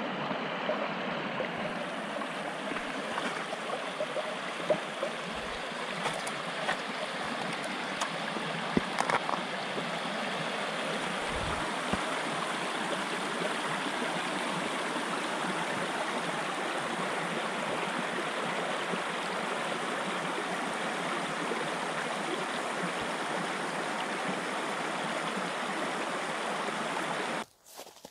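Shallow stream running over rocks, a steady babble and rush of water with a few faint clicks about five to nine seconds in. It cuts off abruptly near the end.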